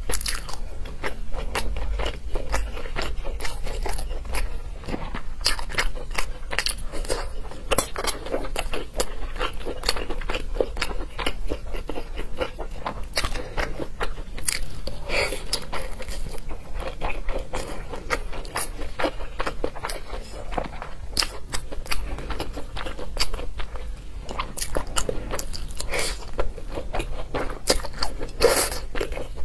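Close-miked eating sounds: wet chewing and biting of fried rice, noodles and sausage, with many small mouth clicks and crunches, and now and then a metal spoon or fork scraping the plate.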